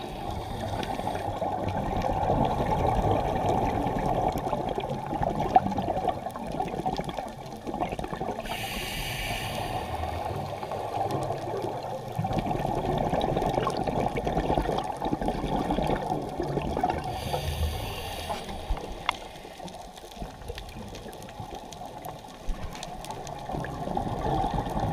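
Underwater sound heard through a GoPro's waterproof housing: a steady muffled rush of water, with two bursts of scuba regulator exhaust bubbles about eight seconds apart.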